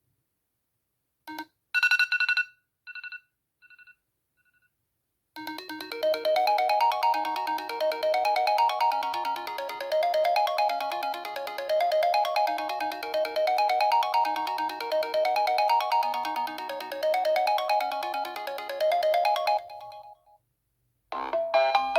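iPhone 4 ringtone playing from the phone's speaker: a melody of rising notes repeated over and over, cutting off about 20 seconds in. Before it comes a click and a short bright chime that echoes away, and near the end a different ringtone begins.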